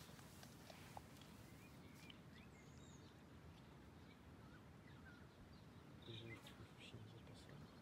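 Near silence: faint outdoor ambience with a few faint, scattered bird chirps.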